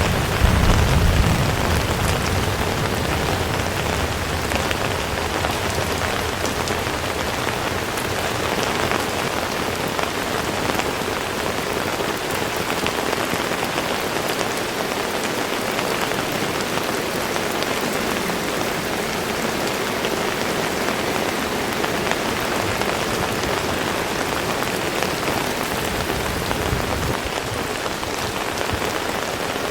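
Heavy rain falling steadily, a dense even hiss with scattered sharper drop ticks. A low rumble at the very start fades away within the first couple of seconds.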